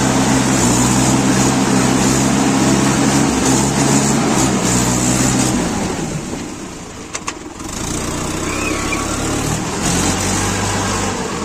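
Diesel tractor engine running steadily, heard from the driver's seat. About six seconds in it drops and quietens for a moment, with two sharp clicks, then runs on at a lower pitch.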